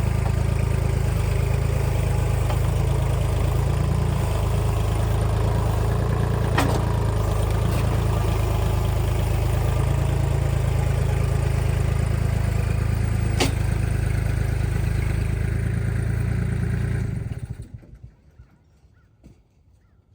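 Kubota L2501 tractor's three-cylinder diesel engine running steadily, with a couple of sharp metallic clanks, then shut off about three seconds before the end.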